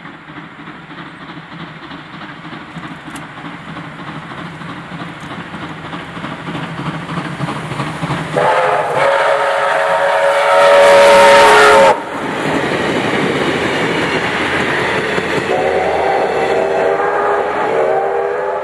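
D3 639, a Victorian Railways D3-class 4-6-0 steam locomotive, running at speed with its train, its noise swelling as it comes closer. Its whistle sounds two long blasts: the first about eight seconds in as the engine passes, the loudest sound here and cut off sharply, the second near the end as the train runs away.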